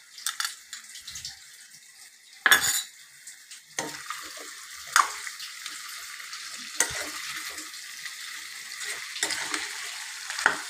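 Chicken frying in a steel kadhai while being stirred with a steel spoon. The sizzle turns steady after about four seconds, and the spoon scrapes and knocks against the pan every second or two, loudest about two and a half seconds in.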